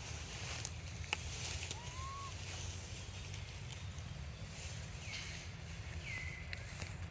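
Outdoor background with a steady low rumble and hiss. A sharp click comes about a second in, and there are three short chirp-like animal calls: one rising call about two seconds in, and two calls near the end that drop and then level off.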